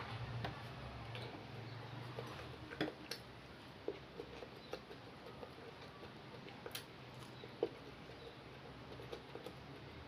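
Faint eating sounds: scattered small clicks and ticks of mouth and hand or utensil on a plate while someone eats plain white rice. A low hum dies away in the first second or two.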